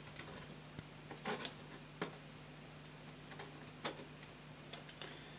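Scattered small clicks and light taps as a connecting rod and its tiny nut are fitted onto a wheel crank pin of a 3D-printed model locomotive chassis, over a faint steady hum.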